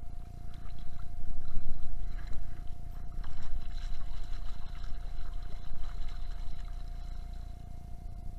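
Muffled water sloshing and a metal sand scoop digging and scraping through sand in shallow surf, heard through a waterproof camera housing. The water rush is loudest about a second and a half in, and a steady tone runs underneath.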